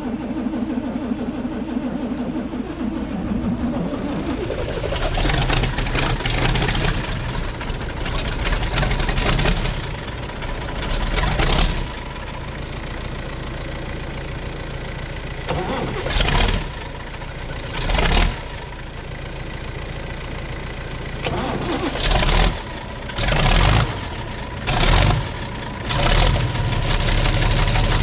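SAME Laser 110 tractor's diesel engine being cold-started: the starter cranks with a steady whine for about four seconds before the engine catches. It then runs rough and is revved in short bursts, the last several about a second apart.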